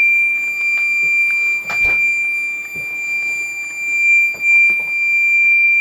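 Gent Xenex fire alarm sounder going off in test mode as the smoke detector is triggered, holding one steady high-pitched tone. A few knocks sound over it, the loudest about two seconds in.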